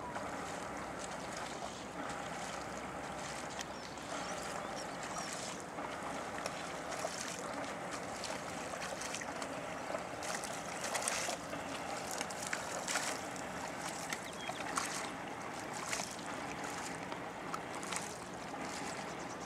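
Paddle strokes of a flatwater sprint kayak splashing into calm lake water over a steady wash of water and wind. Short splashes come roughly once a second in the second half.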